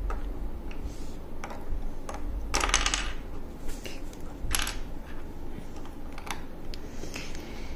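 Plastic LEGO bricks clicking and clattering as they are handled and pressed together on a wooden table: a few sharp clicks, with a half-second run of clatter about two and a half seconds in.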